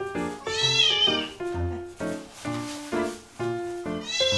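Young kitten mewing, a high, wavering mew about half a second in and another near the end, over background music with held notes.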